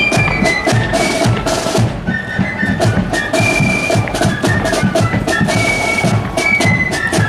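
Marching flute band playing a tune: flutes carry a high melody over rapid snare drumming, bass drum and cymbal crashes.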